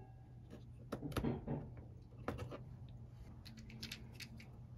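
Light, irregular clicks and taps of a small screwdriver and the plastic rear button panel of a Canon EOS M camera being handled during reassembly, over a faint steady low hum.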